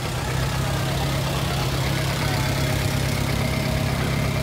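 Antique car engine idling at a steady low speed with an even pulsing beat.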